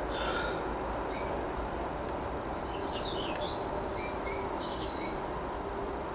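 Birds chirping, with a few short high calls and quick falling trills, over a steady low hum.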